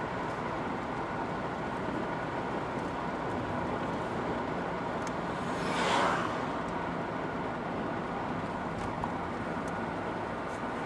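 Steady road and engine noise inside a moving car. About six seconds in, a short swell of noise rises and falls away.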